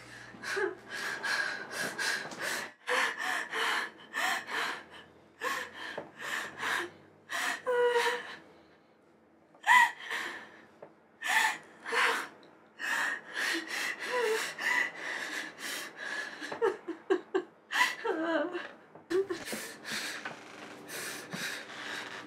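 A woman sobbing: ragged gasping breaths and short whimpering cries in uneven bursts, with a brief pause about eight seconds in.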